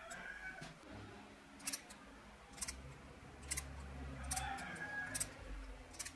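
A hand tap in a T-handle tap wrench cutting threads in a small steel part held in a vise: sharp metallic clicks about once a second as the wrench is turned, over a low hum.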